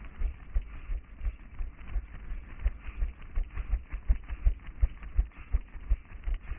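A runner's footfalls on pavement, picked up through a head-mounted GoPro as dull, even thumps about three a second, over a steady hiss.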